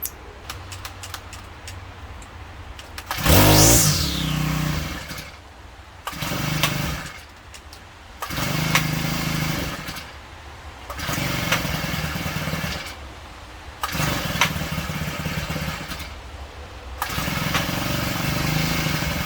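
Husqvarna 324L string trimmer engine running on a newly fitted carburetor, revved up in repeated surges of one to two seconds that drop back to a quieter idle between them. This is a test run after the carburetor swap.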